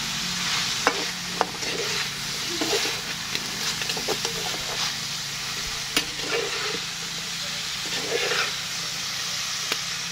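Green beans and pork stir-frying in a metal wok: a steady sizzle, with the scrape and sharp clinks of a metal spatula against the pan every second or two as the food is turned.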